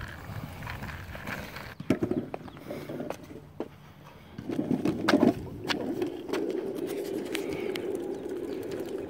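Small plastic wheels of a Y Glider Deluxe three-wheeled kick scooter rolling and rattling over cracked asphalt, with scattered clicks and scrapes. It turns louder and steadier about halfway through.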